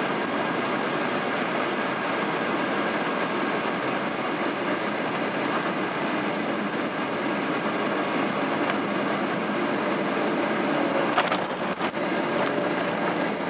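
Cabin noise of a Boeing 737-800 on landing: a steady rush of airflow and CFM56 engine noise, with a sharp thump about eleven seconds in followed by a heavier rumble.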